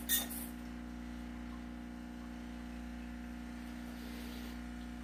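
A single short squirt from a hand spray bottle right at the start, then a steady low electrical hum.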